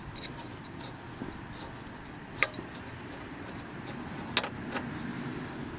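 Spark plug being unscrewed from a 1980s Snapper lawn mower's cylinder head, giving a few small metallic clicks: one about two and a half seconds in, a sharper one about four and a half seconds in and a faint one just after, over a steady low background hum.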